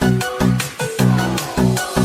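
Electronic dance music with a heavy, regular beat.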